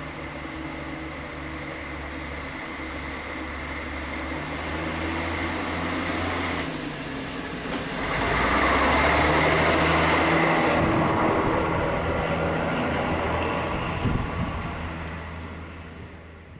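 Class 810 diesel railbus coming into the station and passing through without stopping. Its engine hum grows and is loudest about eight to ten seconds in as it goes by, with a sharp knock a little later, then fades away.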